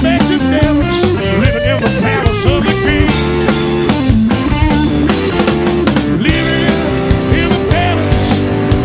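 Rock band recording playing: electric guitar with bending notes over bass and a drum kit, loud and continuous.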